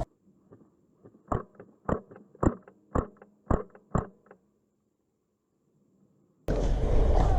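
Six sharp single shots from an HPA-powered Wolverine MTW airsoft rifle fired in semi-auto, evenly spaced a bit under two a second, each with a short after-click. The background noise drops out abruptly at the start and comes back near the end.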